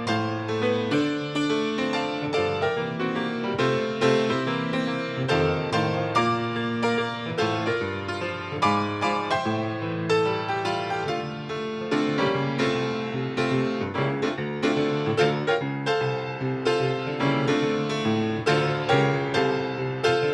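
Solo piano music, a steady run of notes with chords beneath.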